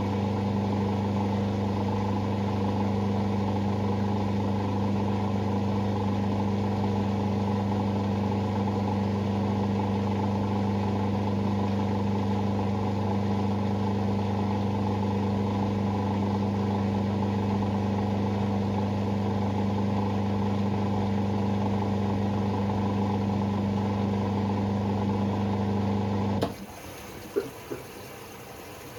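Hoover Sportswear 1300 washing machine's drain pump humming steadily, then cutting off suddenly near the end. A couple of sharp clicks from the machine follow, then a faint trickle of water.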